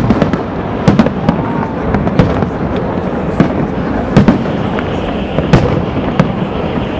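Aerial firework shells bursting in an irregular barrage of sharp bangs, roughly two a second, over a steady background rumble.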